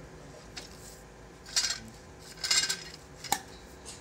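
Metal hand tools scraping and clinking against the module's base: two short scraping clatters, then a sharp metallic clink with a brief ring near the end.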